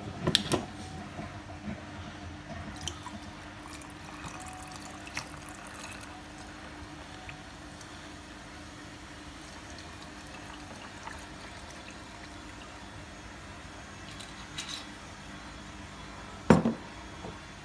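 Fever-Tree Aromatic Tonic poured into a balloon glass over ice and fizzing, with a few clinks at the start and one sharp knock near the end.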